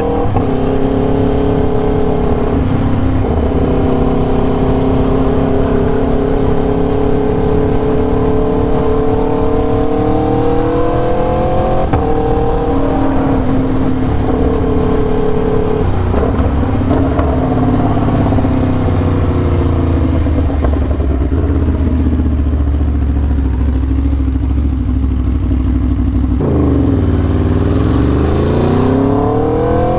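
Aprilia Tuono V4 1100 Factory's V4 engine pulling along at moderate revs. The pitch climbs slowly for about the first ten seconds and steps down around twelve seconds in. It settles lower and steadier from about halfway, then dips and climbs steeply near the end as the bike accelerates hard.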